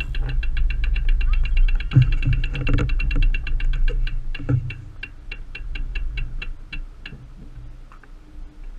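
Bicycle freehub ticking as the bike coasts, the clicks coming fast at first and slowing to about four a second as the bike slows. Low wind rumble on the microphone underneath.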